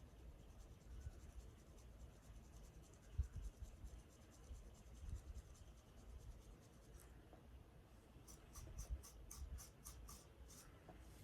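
Faint scratching on a dry, flaky scalp. It ends with a run of quick, even scratch strokes, about five a second.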